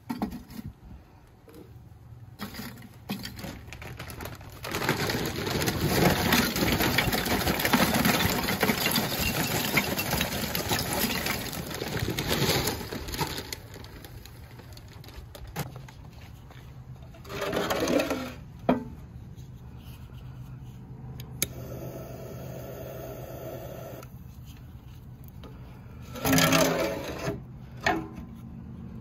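Lump charcoal pieces clinking, rattling and scraping against each other and the ceramic firebox as they are handled and stacked, busiest and loudest in a long stretch in the first half, then in a few shorter bursts.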